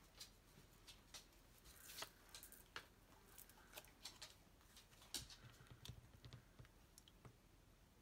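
Faint, scattered clicks and soft rustles of paper and card being handled as a sticker photo is pressed into a paper frame.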